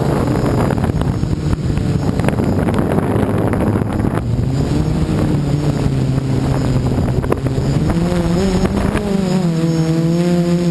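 Xaircraft X450 Pro quadcopter's brushless motors and propellers running in flight, heard from the onboard camera with wind on the microphone. The motor pitch sags and rises as the throttle changes, turning into a clearer, wavering whine near the end.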